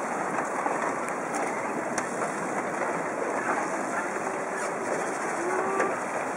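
Steady rushing outdoor noise with no distinct knocks or crashes, dull and even throughout.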